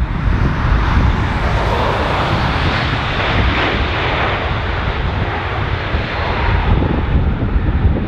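Jet engines of an Airbus A320-family airliner running loud as it rolls down the runway, the rush swelling in the first few seconds and easing as it moves away. Gusty wind buffets the microphone underneath.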